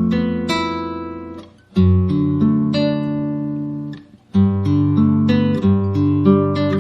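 Background music: plucked and strummed acoustic guitar playing chords, with two short breaks, near the middle and again about two-thirds of the way in.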